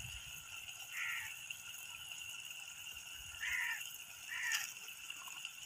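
A bird cawing three times, short harsh calls spread over a few seconds, over faint steady outdoor background.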